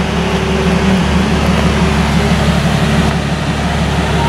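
Ferrari LaFerrari's 6.3-litre V12 running steadily at idle as the car creeps forward at walking pace.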